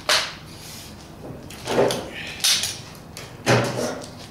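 Four separate metal clunks and rattles as a welder's spring ground clamp is handled and unclipped from a steel tool chest on a rolling cart.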